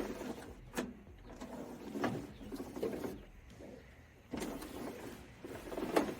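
Suzuki Samurai door window glass and its regulator being worked back into the door's tracks: several sharp clicks and knocks, with a longer scraping stretch in the second half as the glass moves in its channel.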